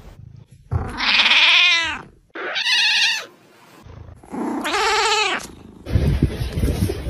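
A cat meowing three times, each a drawn-out call of about a second, with pauses between. Near the end a rougher burst of noise takes over.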